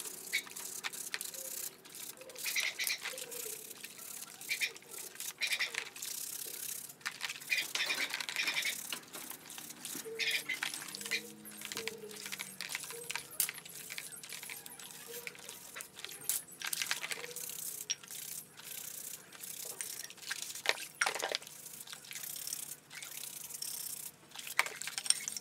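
A stiff-bristled plastic scrub brush scrubbing a rusty metal speaker frame in a plastic basin of soapy water: repeated short scratchy strokes mixed with water splashing and sloshing as the part is moved and lifted.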